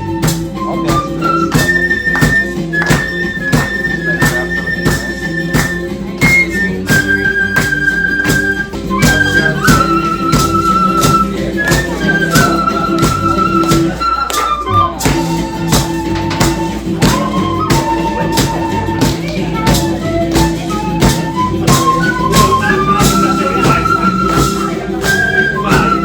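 Peruvian dance music: a melody of long held notes over a steady, even percussion beat and bass, with a brief break about fourteen seconds in.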